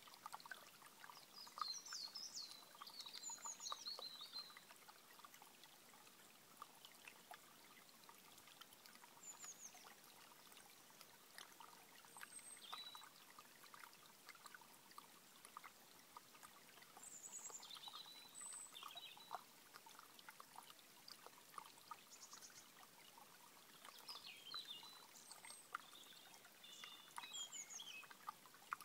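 A small shallow stream trickling and babbling over stones, faint and steady, with many small plinks of water. Birds sing short bursts of song over it several times.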